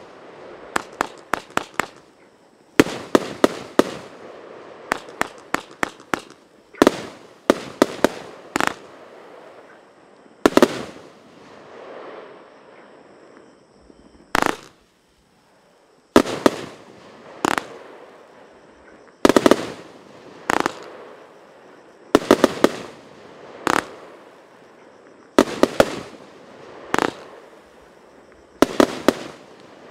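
Fireworks battery firing 30 mm shots with flash-report bangs. The loud, sharp cracks come in quick clusters of several every couple of seconds, with a short silence about fifteen seconds in.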